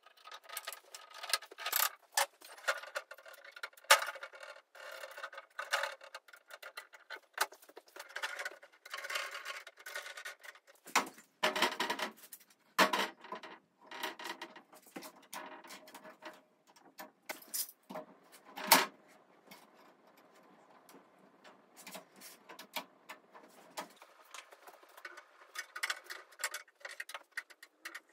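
Long steel bar clamps being handled and set around an oak frame on a plywood bench: irregular clicks, knocks and rattles of metal on wood, with a few louder knocks.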